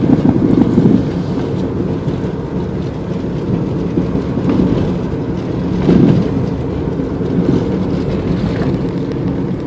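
Car driving, heard from inside the cabin: a steady low rumble of road and engine noise, swelling briefly near the start and again about six seconds in.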